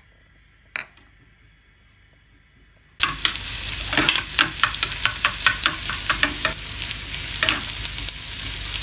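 Chopped garlic sizzling in hot oil in a small non-stick pan, stirred with a silicone spoon that makes frequent scraping ticks against the pan. The first three seconds are nearly quiet apart from a single click, then the sizzling starts suddenly.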